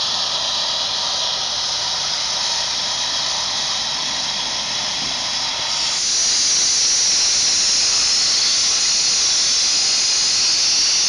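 Sandblaster blasting abrasive at the bed of an antique wood lathe: a loud, steady hiss, stepping louder and sharper about six seconds in.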